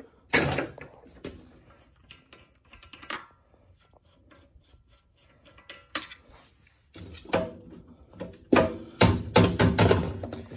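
Irregular clanks and knocks of hand tools and metal parts being handled and set down on a work surface. There is one sharp knock just after the start, scattered lighter clatter in the middle, and a run of louder clunks in the last few seconds.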